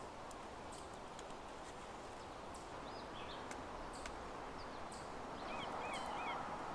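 Wood campfire crackling, with scattered sharp pops over a steady hiss. Small birds chirp briefly twice, around three and six seconds in.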